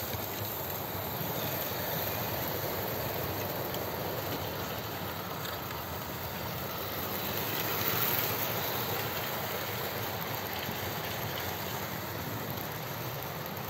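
Several OO gauge model trains running on the layout at once: the steady rolling rattle of wheels on track with the whirr of their motors. It swells louder about eight seconds in as trains pass close by.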